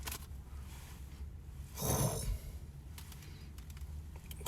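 A single short breath from a person, about two seconds in, over a faint steady low hum.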